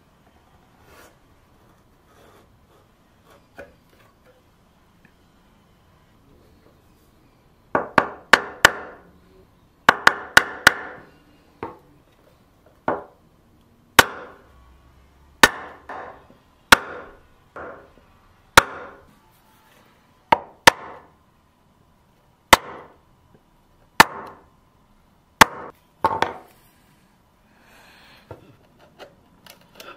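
Wooden mallet striking a chisel into birch, chopping out a shallow hinge recess in the chest's edge. After a quiet start come two quick runs of three sharp knocks, then single knocks about every second to second and a half, followed by faint scraping near the end.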